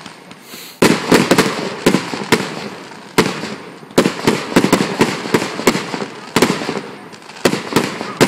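Fireworks display: aerial shells bursting with sharp bangs in quick clusters, about every second or two, each followed by a fading, echoing rumble. A faint launch whoosh comes just before the first burst.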